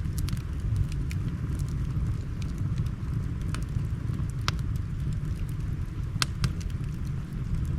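Wood fire crackling: scattered sharp pops and snaps, the loudest about four and a half and six seconds in, over a steady low rumble.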